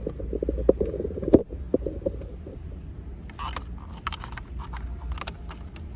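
Plastic wiring-harness connectors being handled and pushed together, with a sharp click about a second and a half in, then several smaller clicks and rattles, over a low steady hum.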